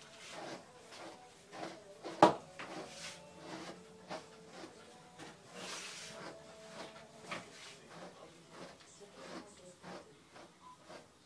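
Scattered small knocks and rustles from handling a dog and fluffing its coat on a grooming table, with one sharp knock about two seconds in.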